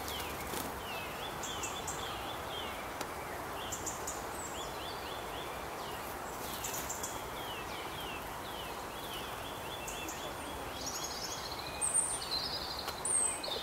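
Small songbirds calling with many short, repeated downward chirps, high in pitch, over a steady background hiss of outdoor ambience; two louder, higher calls stand out near the end.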